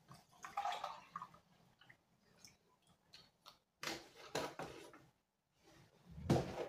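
Water poured from a plastic jug into a travel mug, then crackling handling noises, and a heavier thump near the end as something is set down on the wooden table.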